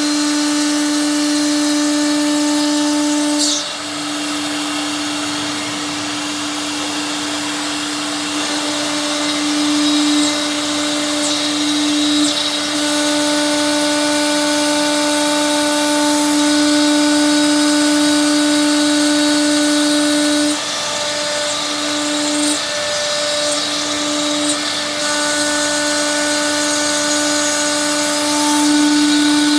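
Stone CNC bridge saw running and cutting a stone countertop: a steady motor whine over a grinding hiss, dipping briefly in level a few times as the load on the blade changes.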